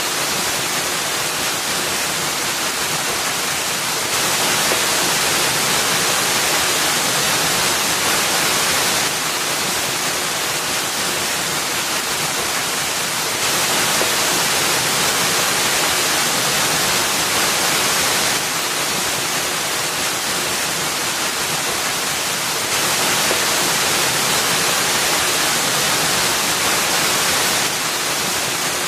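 Waterfall: thin streams of water falling off a rock ledge into a pool, making a steady rushing hiss. Its level steps up or down abruptly every four or five seconds.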